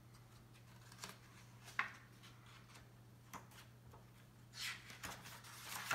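Paper pages of a children's picture book being handled and turned: a few faint taps, then a brief papery rustle near the end and a sharp click as the page settles, over a quiet room with a faint steady hum.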